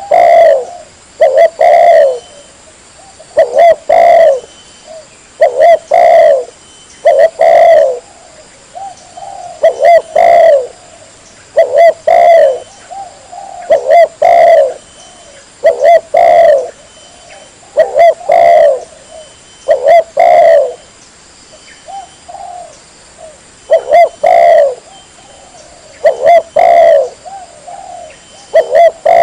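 Spotted dove (tekukur) cooing, as a lure recording: short coo phrases repeat about every two seconds. The recording is very loud, with peaks at full scale.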